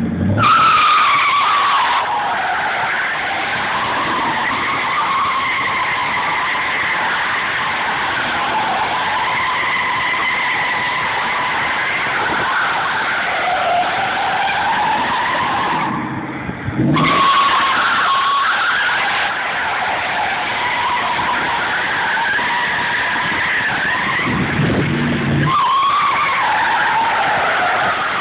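Ford Lightning pickup's tyres squealing continuously through drifting doughnuts, the pitch wavering up and down. The squeal breaks off for about a second around 16 seconds in, then resumes.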